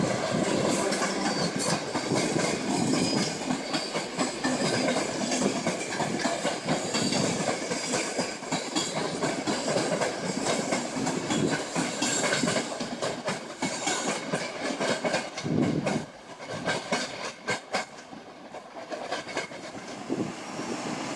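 Passenger train running through, its wheels clattering over rail joints and points with many short clicks. The sound drops away sharply about three-quarters of the way through.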